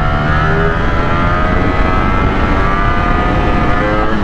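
Motorcycle engine accelerating hard in second gear, its pitch climbing steadily as the bike gathers speed, with wind noise underneath.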